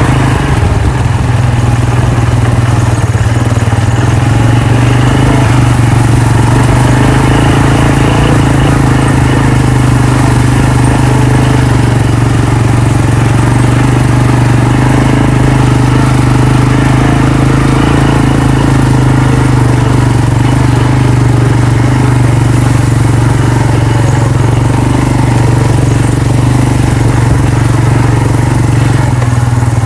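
ATV (four-wheeler) engine running steadily while being ridden, a loud even drone with little change in pitch.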